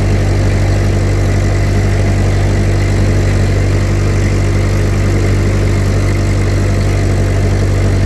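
1952 Ford 8N tractor's four-cylinder flathead engine running steadily at an even speed.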